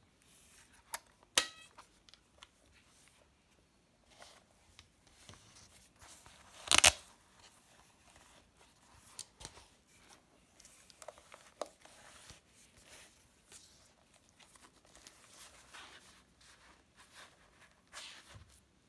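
Handling sounds from a Pentax PC-3000 compact film camera and its soft case: two sharp plastic clicks about a second in as the camera back is shut, a brief louder rasp near the middle, and light rustling and ticks.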